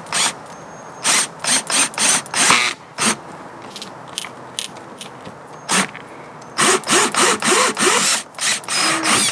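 Ridgid cordless drill boring the 1.5-inch pipe opening through the top of a plastic water tank, run in short trigger pulses. There are two runs of quick pulses, one about a second in and another from about six and a half seconds to near the end, and the motor's whine rises and falls with each pulse.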